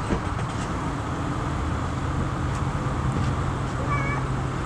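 Steady low rumble of jet aircraft engines, with a steady low hum throughout.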